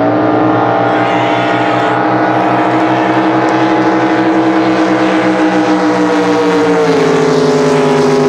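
Racing drag boat engine running flat out at high, steady revs, then dropping a step in pitch about seven seconds in.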